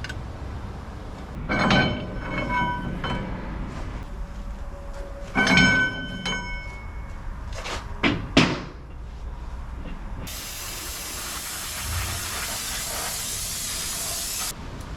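Metal clanking twice with a ringing tone, a few sharp clicks, then a steady high hiss for about four seconds that cuts off suddenly, during axle seal work in a shop.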